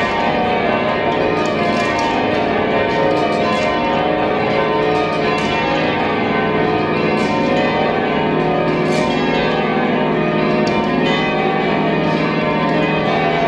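Change ringing on the back eight bells of Gloucester Cathedral's ring of twelve: a steady run of full-circle bell strikes, one close behind another, with the tones of the bells overlapping.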